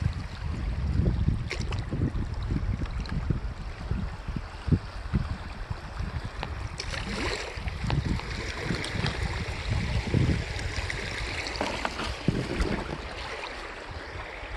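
Wind buffeting the microphone over water lapping at a kayak's hull as it is paddled along a river. Paddle strokes splash now and then, clearest about seven seconds in and near the end.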